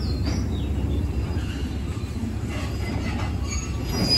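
Freight train of railway tank cars rolling slowly past, a steady low rumble with a faint high wheel squeal near the start.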